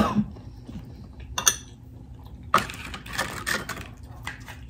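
A sharp click about a second and a half in, then short bursts of dry crackling and clatter as hard corn taco shells are handled and lifted from a platter.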